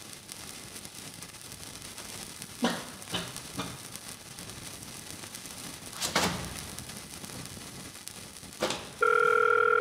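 A few soft knocks and rustles over a faint hiss, then near the end a steady electronic telephone tone starts and holds, louder than anything before it.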